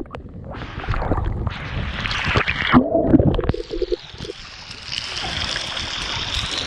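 Water splashing and sloshing close by as swimmers move through the pool. From about four seconds in it gives way to a steady rush of falling water.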